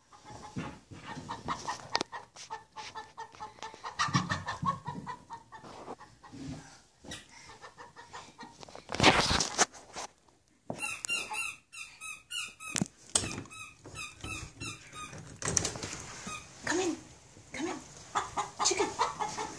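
Chicken squawking and clucking, with a run of quick repeated calls about halfway through, mixed with many sharp clicks and knocks.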